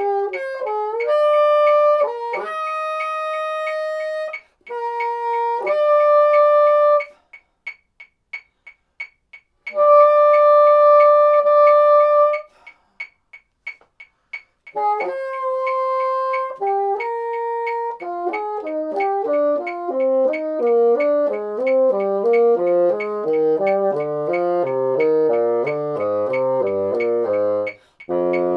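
Moosmann bassoon playing a fourths exercise: held notes in short groups with pauses between them, then from about two-thirds of the way through a quicker run of notes that steps down into the low register. A metronome ticks steadily under it, plainly heard in the pauses.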